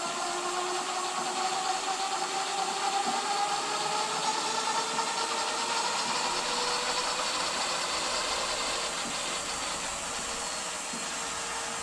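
Electric bike's rear hub motor running on throttle at assist level 1, the wheel spinning freely off the ground. It gives a steady electric whine of a few held tones over a light hiss.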